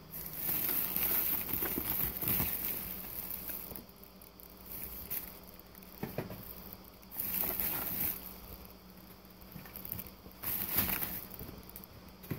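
Plastic and paper packaging crinkling and rustling as bagged groceries are shifted inside a bubble-wrap-lined box, in three bouts with quieter handling between.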